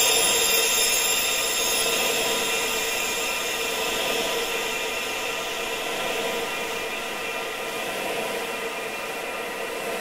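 Wind sound blended with many steady high ringing tones, part of a sound-therapy track for tinnitus relief; the whole gradually fades over the first several seconds.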